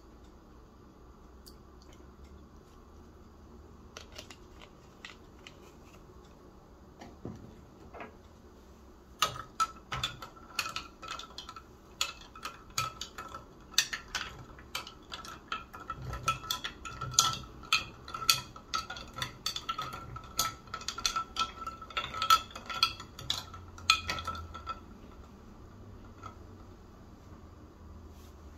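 Metal spoon stirring iced coffee in a glass mug, clinking rapidly against the glass and ice with a ringing note, for about fifteen seconds. It starts after several quiet seconds with a few faint clicks and stops shortly before the end.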